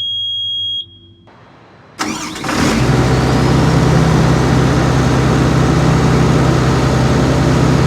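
A steady high electronic beep for under a second, then about two seconds in an engine starts with a sudden burst and settles into a steady, even run.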